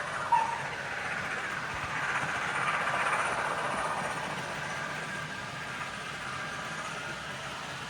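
Hornby OO gauge 9F model steam locomotive hauling a long rake of open wagons at speed around a layout: a steady running clatter of wheels on track that swells about two to four seconds in as the train passes nearest. There is a short high tone just after the start.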